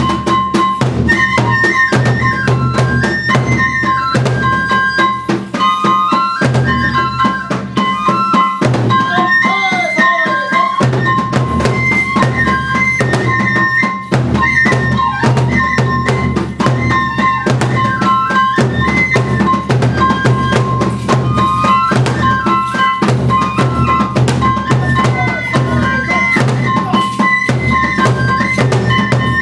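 Kagura music: a bamboo flute playing a high, stepping melody over a fast, steady drum beat, the deep drum dropping out briefly around six and again about nine seconds in.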